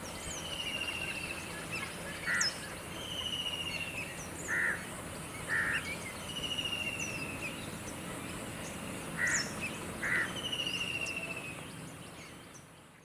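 Several birds calling together over a steady background hiss: short repeated calls, falling trills of about a second each, and thin high notes. The sound fades out near the end.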